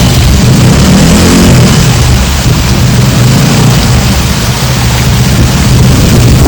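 Heavy monsoon rain: a loud, steady rush of rain with a deep low rumble under it.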